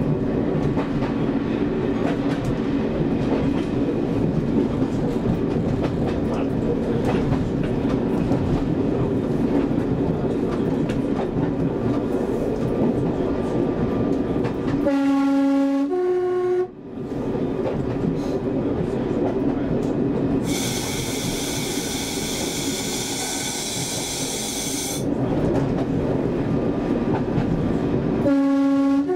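Class 101 diesel multiple unit under way, heard from the driving cab: steady diesel engine and wheel-on-rail running noise. Its two-tone horn sounds, a low note then a higher one, about fifteen seconds in, and again near the end; in between, a high hissing sound lasts about four seconds.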